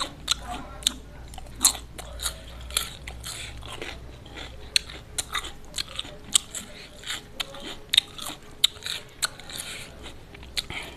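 Close-miked chewing of crispy fried chicken: irregular crunches and wet mouth clicks, a few a second.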